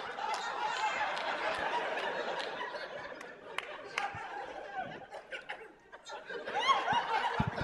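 Comedy-club audience laughing after a punchline, the laughter dying down over the first five or six seconds, then a fresh burst of laughter near the end.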